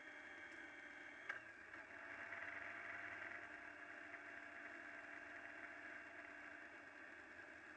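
Faint, muffled motorcycle engine and road noise at a steady cruising speed, with a sharp click a little over a second in, after which the sound grows slightly louder.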